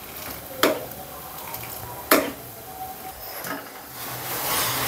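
Metal spoon stirring and ladling simmering milk in a kadhai while it is reduced: the spoon knocks sharply against the pan twice, with the splash of milk poured back in. Near the end a scraping, stirring noise builds as a ladle works through the frothy milk.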